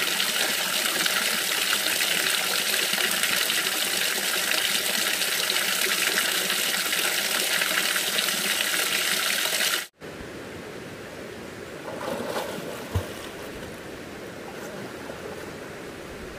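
Stream water rushing, a loud steady hiss that breaks off abruptly about ten seconds in, followed by quieter flowing water with a short knock a few seconds later.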